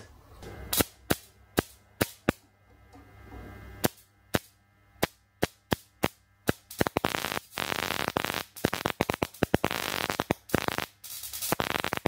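Sharp high-voltage snaps as a capacitor charged to about 6 kV through a voltage doubler is discharged into a microwave-oven magnetron, one or two a second. From about seven seconds in, the snaps turn into a rapid crackling run of discharges with short breaks.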